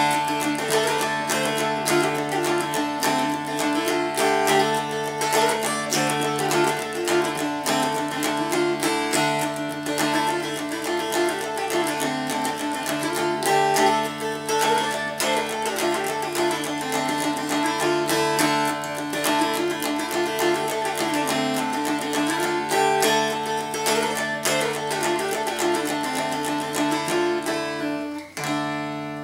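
Mountain dulcimer in D-A-C tuning, picked: a fiddle-tune melody over steadily ringing drone strings, closing near the end with a last strum left to ring and fade.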